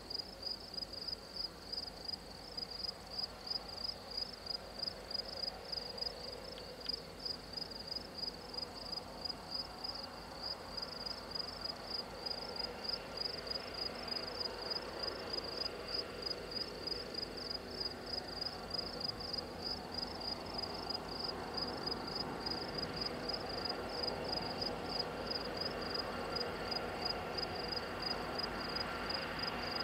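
Insects chirping in a steady, pulsing high trill of about three chirps a second. Under it, the engine and wheel noise of an approaching loaded coal train led by EMD SD70MAC diesel locomotives grows louder from about halfway through.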